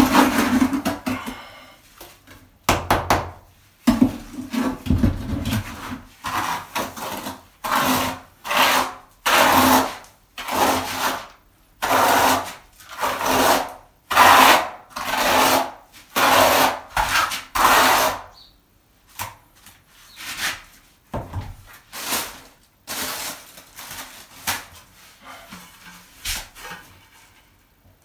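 Notched steel trowel scraping across freshly spread tile adhesive, combing it into ridges in repeated strokes about one a second; the strokes turn fainter and sparser in the last third.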